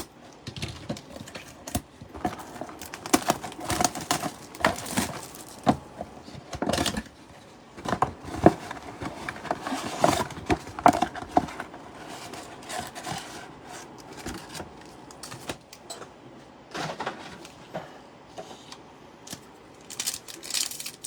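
Trading card packs and cards being handled and opened: irregular rustling, crinkling and sharp little clicks of wrappers and card stock.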